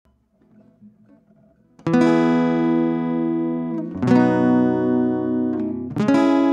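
Background music: an acoustic guitar strums three chords, starting about two seconds in and then one every two seconds, each left to ring and slowly fade.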